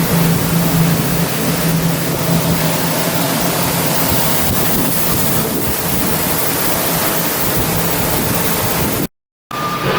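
Loud, steady rushing noise with a low hum, cut off suddenly about nine seconds in; after a brief gap a different steady noise with a high tone starts.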